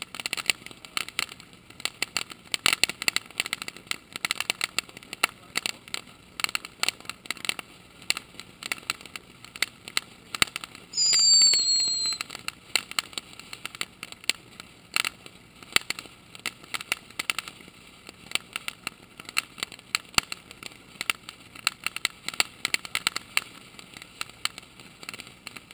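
Ground fountain fireworks spraying sparks, with a dense, irregular crackle throughout. About eleven seconds in, a loud high firework whistle sounds for about a second and a half, sliding slightly in pitch.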